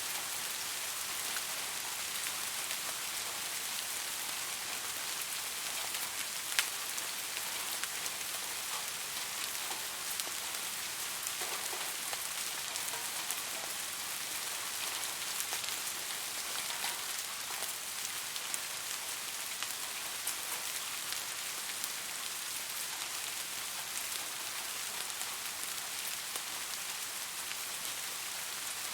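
Steady rain falling on a surface: an even hiss with scattered single drops ticking through it, one sharper drop about six and a half seconds in.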